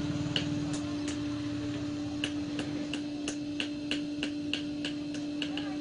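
Sharp ticking, about three ticks a second with a couple of short pauses, over a steady low hum.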